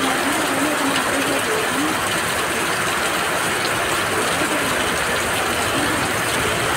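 Heavy rain pouring down steadily, an even, dense wash of downpour noise.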